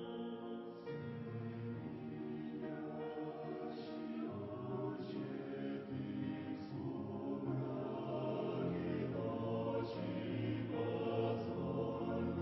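Choir singing a hymn in slow, sustained chords.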